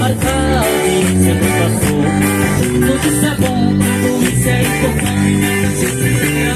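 A Christian praise (louvor) band playing, with guitar prominent over a steady full-band accompaniment.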